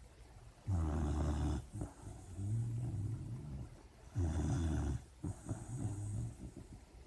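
Sleeping puppy snoring in a steady rhythm: a louder snore followed by a softer one, repeating about every three and a half seconds.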